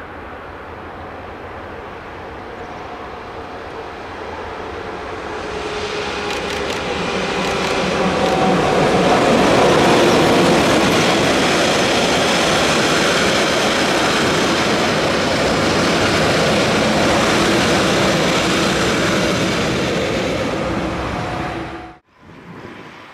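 A Rhaetian Railway Ge 6/6 II electric locomotive hauling loaded log wagons approaches and passes with a steady hum that slowly drops in pitch, followed by the wagons rolling by with wheel clatter. The sound builds for about eight seconds, stays loud, then cuts off abruptly near the end.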